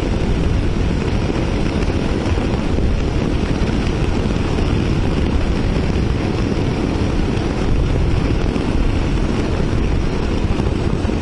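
Steady wind noise over a motorcycle helmet at about 64 km/h, with the bike's engine cruising in fifth gear underneath. The helmet lets a lot of wind through.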